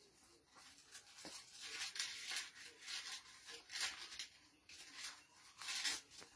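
Pages of a Bible being turned one after another: a series of quiet, short paper rustles.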